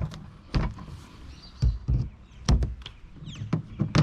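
Several separate knocks and clunks of hard objects being handled and shifted, the loudest about two and a half seconds in.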